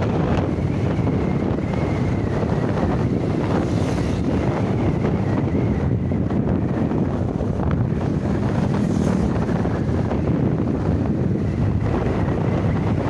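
Wind buffeting the microphone on a moving motorcycle: a steady, dense low rush that stays even throughout.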